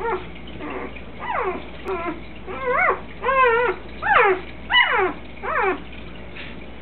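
Newborn puppies crying: a string of about nine short, high-pitched whines, most sliding down in pitch and a few rising then falling, coming about one a second.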